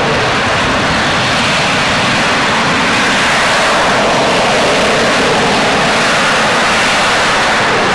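AV-8B Harrier II's Rolls-Royce Pegasus vectored-thrust turbofan at high power as the jet lifts off vertically into a hover: loud, steady jet noise with a dense hiss and no distinct tone.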